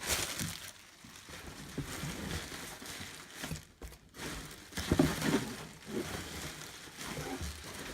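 Bubble wrap crinkling and rustling as a model building is wrapped by hand, with a louder bump about five seconds in.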